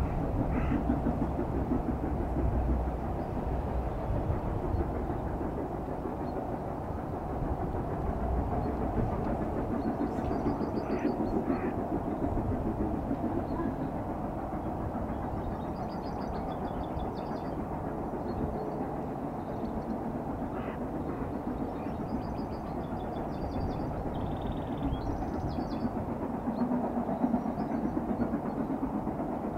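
Steam locomotive working a train in the distance: a steady rumble from the engine and train.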